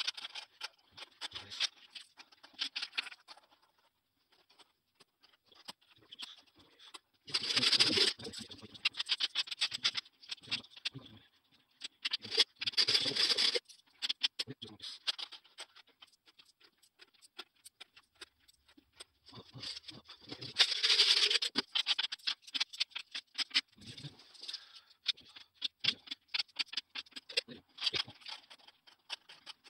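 500-yen coins clinking and clicking as they are handled, counted and set down in rows and stacks on a wooden table, with three louder spells of clattering spread through.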